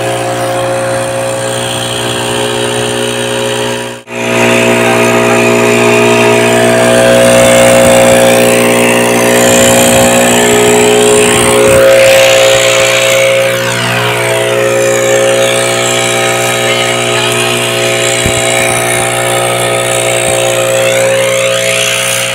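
Backpack leaf blower's petrol engine running steadily at high speed, with a brief drop about four seconds in, after which it is louder.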